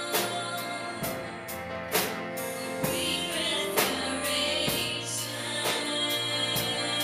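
Gospel song music: sustained chords with a steady drum beat, about one hit a second.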